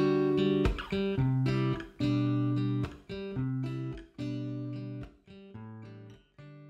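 Outro music: guitar chords strummed about once a second, each ringing out and dying away, and each quieter than the last, so the music fades toward the end.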